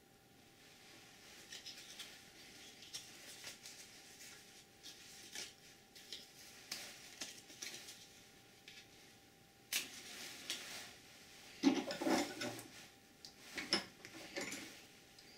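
Light handling clicks and rustles, then a paper match scraped against a matchbook's striker strip, scratching in short bursts, the loudest about twelve seconds in, and catching near the end.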